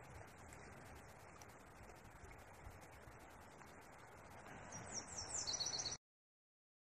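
A small songbird sings a short phrase of quick, high, falling notes near the end, over a faint steady outdoor rush; all sound cuts off suddenly a second later.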